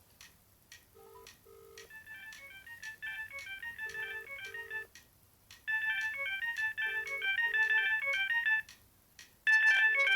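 Polyphonic ringtone from an Alcatel OT-E256 mobile phone: a short electronic melody over a bass line, repeating. It starts faint about a second in and grows louder in steps, with a brief pause before the last rise near the end.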